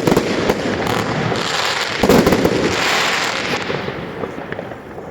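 Fireworks and firecrackers going off: a string of bangs over continuous crackling, loudest about two seconds in, fading near the end.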